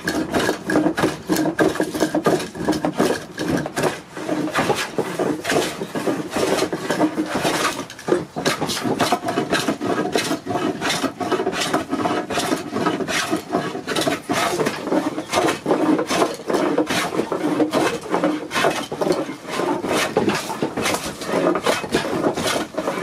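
Metal hand plane shaving an old weathered fence post, in short, quick strokes one after another with a brief pause about eight seconds in. The post's rough outer wood is being planed off to square it up.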